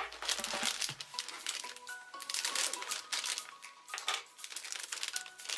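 Clear plastic bags around model-kit runners crinkling as they are handled and moved, over soft background music.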